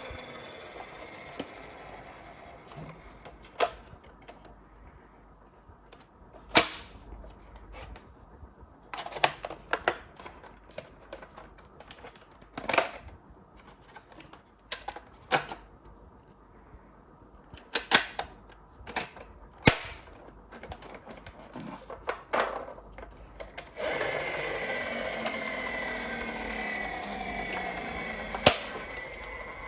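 Irregular sharp clicks and clacks of miniature toy ambulances being handled and set down. About three-quarters of the way through, a steady wavering siren sound starts and carries on.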